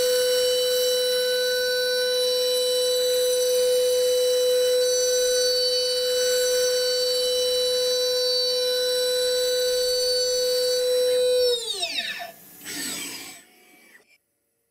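A machine motor whining steadily at one high pitch; about eleven and a half seconds in its pitch falls steeply and it stops within a second as the machine spins down.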